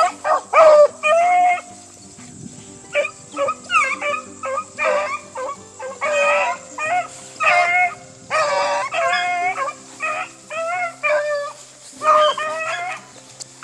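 Rabbit hounds baying on a rabbit's trail: a string of short, pitched cries, one or two a second, from dogs in full chase.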